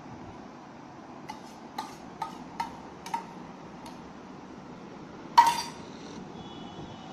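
Cutlery clinking lightly against a plate: a string of small taps, then one louder ringing clink about five seconds in.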